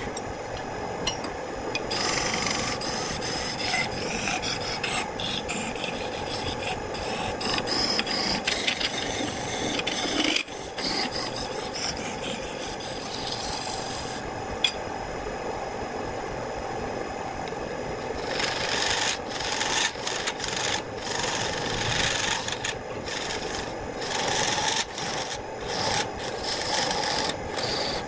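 Wood lathe spinning a wooden blank while a hand-held turning tool cuts it, a rough, steady scraping of shavings coming off the wood. The cutting stops for a few seconds around the middle, leaving only the lathe running, then starts again.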